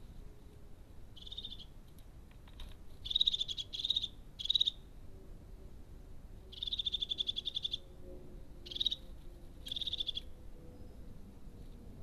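Crested tit giving its purring, rattling trill calls: about seven short rapid trills on one pitch, the longest lasting a little over a second about halfway through.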